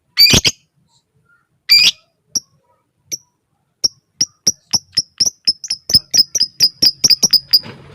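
Lovebird calling: two harsh, loud calls, then a long run of short, sharp ticking notes ('ngetik') that speed up to several a second before stopping near the end.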